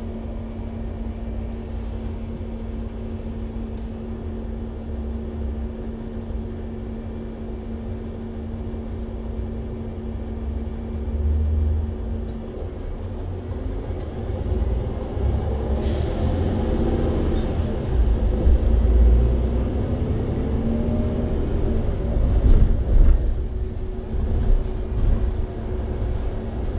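Mercedes-Benz Citaro C2 G NGT Hybrid articulated city bus heard from inside the cabin: the natural-gas engine idles with a steady hum, then about 16 s in a sharp hiss of released compressed air, and the engine rises in pitch and grows louder as the bus pulls away through its Voith automatic gearbox.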